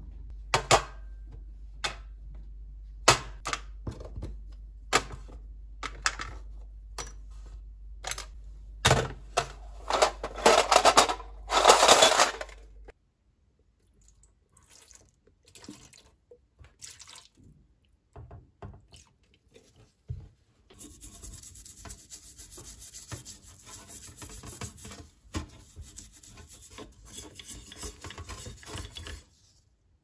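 Small steel screwdriver parts clinking and clattering into a stainless steel tray, then cleaning liquid poured over them. About twenty seconds in, a small brush starts scrubbing the parts in the liquid with a steady rubbing.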